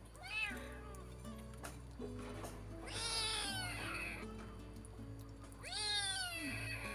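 Young kitten mewing three times, the middle call the longest, over background music with long held notes.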